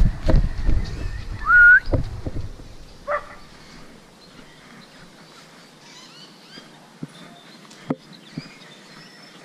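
Handling knocks and rubbing on a moving action camera for the first two seconds, with one loud whistle-like note that rises and falls about a second and a half in. After that, faint bird chirps and a few light clicks.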